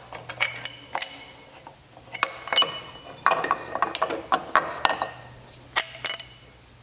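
Hand wrench and bolts clinking against the metal of a vintage motorcycle engine while the magneto is unbolted from its base. The sound is a series of sharp, ringing metallic clinks in several bunches.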